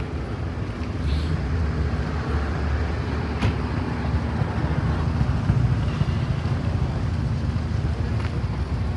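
Steady low rumble of vehicle engines running, with one sharp click about three and a half seconds in.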